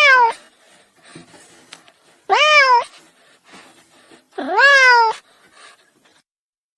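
Domestic cat meowing: the tail end of one meow at the start, then two loud, drawn-out meows about two seconds apart, each rising and then falling in pitch.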